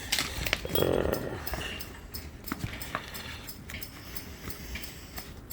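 Serval making a short call about a second in as it bites at a toy, then scattered small clicks and rustling.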